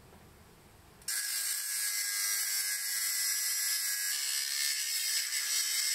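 Angle grinder cutting through the steel rods of a wire grill grate: a steady high-pitched grinding that starts abruptly about a second in.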